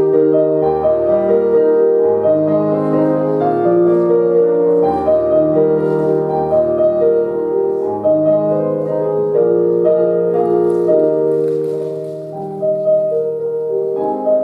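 Piano music: a slow prelude played in sustained chords over a moving bass line.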